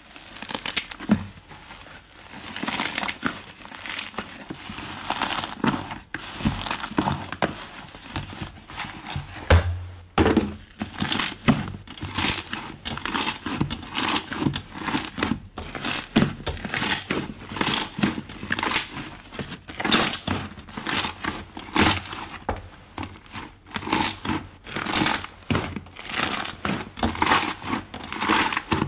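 Hands squeezing and kneading thick slime: a steady run of wet squelches and crackles, about two a second, that become sharper and more distinct after about ten seconds.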